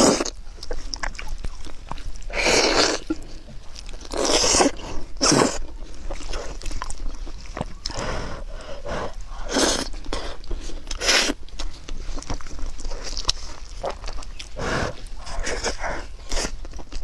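Close-miked eating of a glazed braised pork knuckle: wet biting, sucking and chewing of the sticky skin, in irregular noisy bursts a second or more apart.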